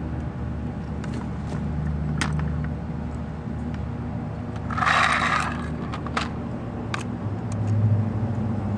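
A few light clicks and a brief scraping rustle about five seconds in, from wire cutters and the socket set's plastic holder being handled, over a steady low hum.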